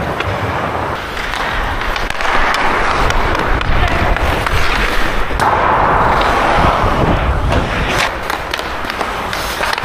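Hockey skate blades carving and scraping across rink ice, with a longer hard scrape about five and a half seconds in and a few sharp clacks of sticks and puck near the end.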